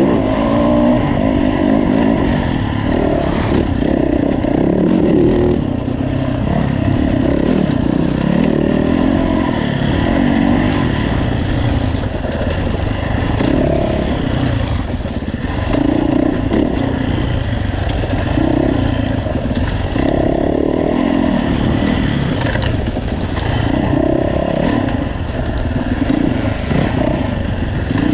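Yamaha dirt bike engine being ridden hard, its revs rising and falling continually as the throttle is worked over rough rocky ground, with stones clattering under the tyres.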